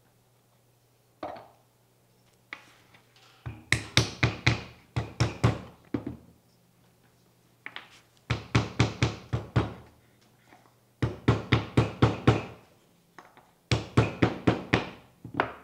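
Light mallet taps on a small wooden box held on a workbench, one knock about a second in and then four quick runs of about eight taps each, a few seconds apart.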